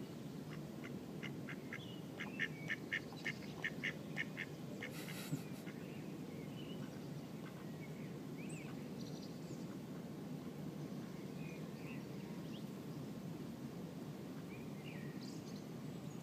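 Mallard ducks quacking. A quick, even run of about a dozen short quacks starts about a second in and lasts around three seconds, over steady low background noise.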